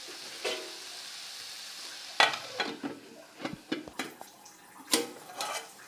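Potatoes, peas and carrots sizzling in mustard oil in an aluminium pot, then a pot lid clattering against the rim as it is set on to cover it, with several sharp metal knocks from about two seconds in.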